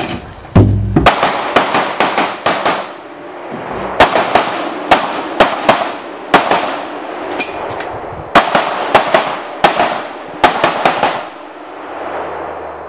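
Handgun shots fired in quick strings of two to four with short pauses between, each crack ringing briefly; the firing stops about a second before the end.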